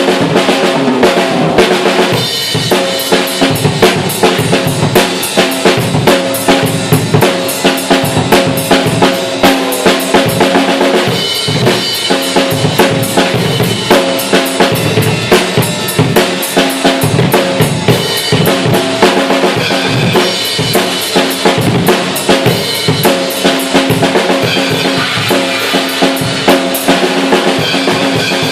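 Tama Starclassic Performer birch/bubinga drum kit played continuously, with fast double-pedal bass drum strokes under snare hits. The drums are still not fully tuned.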